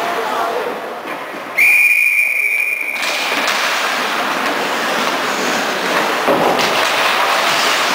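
Ice-hockey referee's whistle: one steady, high blast of about a second and a half, starting about a second and a half in. After it, the scrape of skates and sticks on the ice as play goes on.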